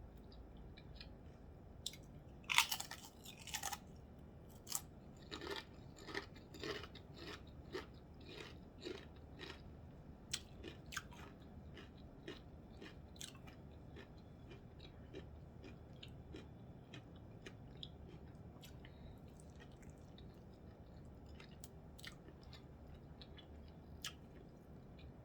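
A person biting into and chewing salt and vinegar kettle-cooked potato chips: a loud crunch about three seconds in, then a run of crisp crunches that thin out and grow fainter in the second half.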